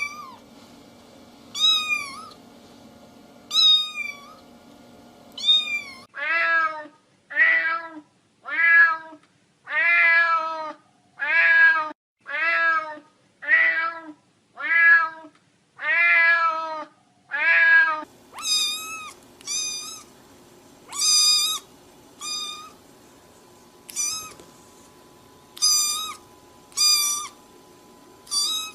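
A cat meowing over and over in short rising-and-falling calls. High-pitched calls come about every two seconds at first, then from about six seconds in a faster run of lower meows, then from about eighteen seconds in higher meows again, about one a second.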